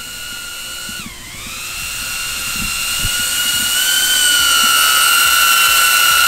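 DJI Avata FPV drone's ducted propellers whining as it comes down to land on return-to-home. The pitch dips briefly about a second in and then holds steady, growing louder as the drone comes close.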